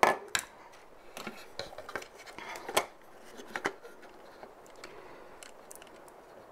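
Clicks and light knocks of a pack of NiCd battery cells being handled and pressed into the Metrokane Rabbit wine opener's metal housing: a sharp knock at the start, then a scatter of smaller clicks that thin out after about four seconds.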